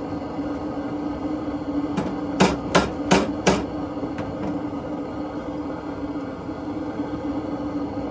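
Wire fry basket knocking against the metal frame of a propane deep fryer: four sharp knocks within about a second, a little over two seconds in, over a steady low hum.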